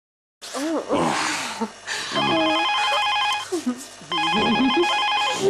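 Telephone ringing with a trilling electronic ring, twice, each ring about a second and a half long, the first starting about two seconds in. Between the rings a man's voice makes wordless sounds.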